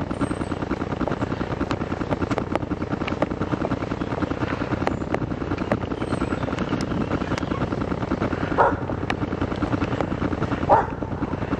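A steady mechanical drone made of fast, even pulses, about five a second, with scattered clicks. Near the end come two brief, sharper sounds.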